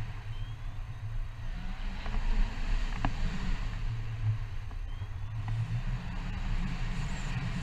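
Wind buffeting the action camera's microphone during a tandem paraglider flight, heard as a steady low rumble with a faint hiss above it.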